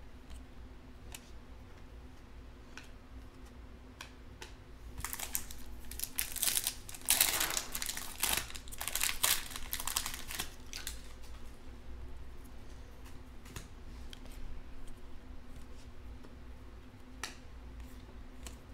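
Foil trading-card pack being torn open and crinkled. A burst of crackling starts about five seconds in, runs for several seconds and is loudest in the middle. Around it are faint clicks of the cards being handled.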